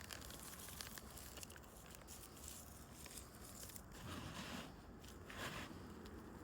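Faint rustling and scraping of hands sifting through loose potting soil from a dumped grow bag, with two slightly louder scrapes about four and five and a half seconds in.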